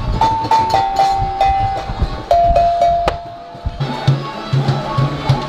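Cowbells hanging on a frame struck in turn with a stick, each hit ringing a clear metallic note, the notes stepping down in pitch over the first three seconds. From about four seconds in, a low-pitched drum is beaten several times in a quick pattern.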